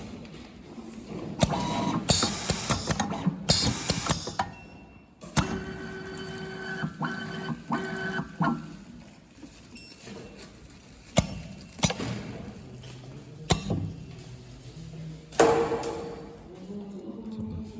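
Semi-automatic USB cable soldering machine working in short mechanical cycles. There are loud bursts of hiss near the start and again near the end, sharp clicks, and three short whirring runs in a row in the middle.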